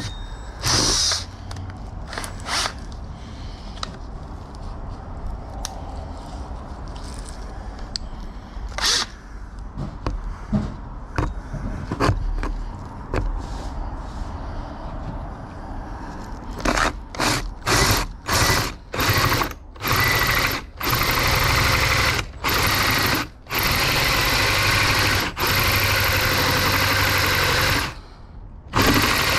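Scattered tool-handling clicks and knocks. Then, a bit past halfway, a power drill is triggered in short bursts before running for several seconds at a time with brief pauses, boring into the steel door.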